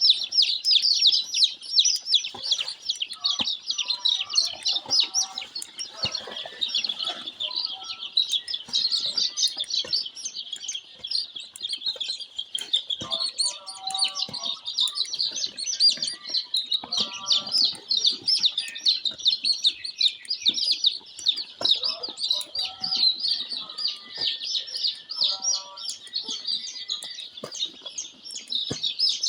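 Many young brown layer chicks peeping together in a dense, continuous chorus of short high chirps, with a few brief lower sounds now and then.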